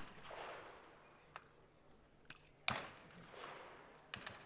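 Trap shotgun shot echoing away over the range, then about two and a half seconds in another, fainter shotgun shot with its own echo. Two sharp clicks come near the end.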